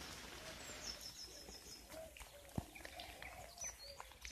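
Faint garden birdsong over a steady outdoor hiss. About a second in comes a quick run of high chirps, with other scattered calls and a few soft clicks.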